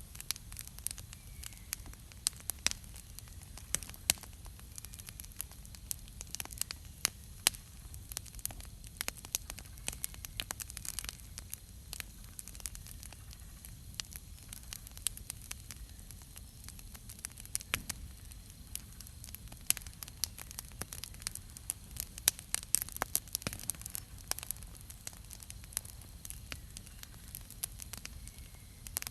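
Wood campfire crackling, with irregular sharp pops and snaps throughout over a steady low rumble.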